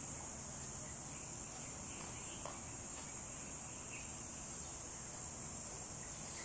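Steady high-pitched drone of insects, with a single faint click about two and a half seconds in.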